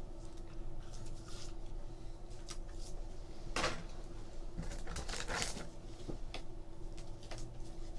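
Quiet handling of a trading card being slid into a plastic card sleeve: soft rustling, with brief scrapes about three and a half and five seconds in, over a faint steady hum.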